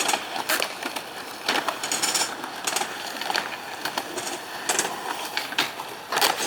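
Skateboard wheels rolling on pavement, a steady rumble, with several sharp clacks of the board's wood and trucks hitting the ground.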